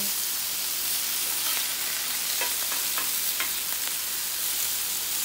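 Marinated portobello mushroom caps sizzling on a hot cast iron grill pan: a steady frying hiss with a few small crackles in the middle.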